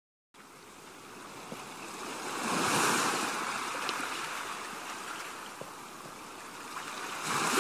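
Ocean surf washing onto a beach, fading in from silence at the start; the wash swells about two and a half seconds in and again near the end.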